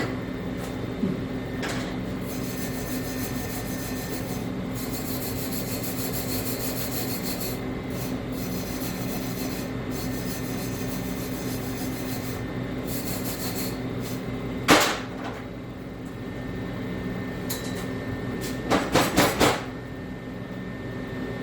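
Lincoln MIG welder arc crackling in several short runs on steel tubing over a steady electrical hum. A single sharp knock comes about fifteen seconds in, and a quick run of four knocks follows near the end.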